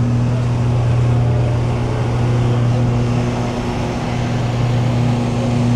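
A generator engine running steadily at constant speed, giving a loud, even low hum.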